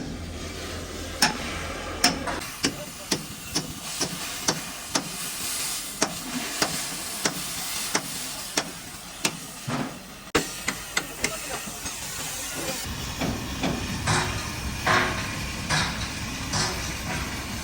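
Repeated hammer blows on metal at about two a second over a steady hiss, growing less regular after about ten seconds.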